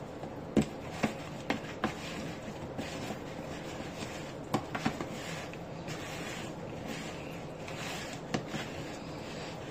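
A hand tossing oil-coated potato wedges in a plastic bowl: soft wet shuffling with a few sharp knocks of wedges against the bowl, bunched near the start, in the middle and once near the end.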